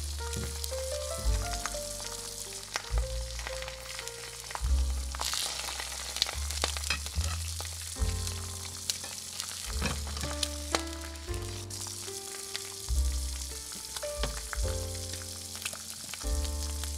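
Diced vegetables sizzling in a miniature cast-iron skillet as they are stirred, with frequent light clicks and scrapes of a tiny metal utensil against the pan. Background music with a bass line plays throughout.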